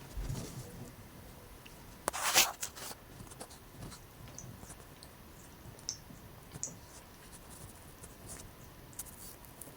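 A cat scratching and scuffing, with a low thump at the start, one louder scrape about two seconds in, then small scattered clicks.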